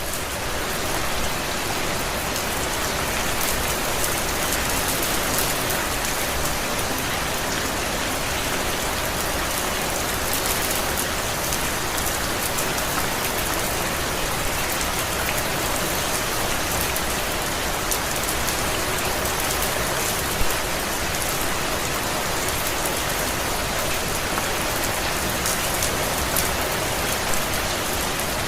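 Steady rain falling, a dense, even patter of drops with many fine drop hits and one slightly louder hit about twenty seconds in.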